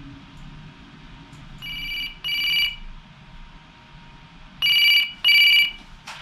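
Telephone ringing with an electronic tone in double rings: two pairs of short rings, about three seconds apart, signalling an incoming call.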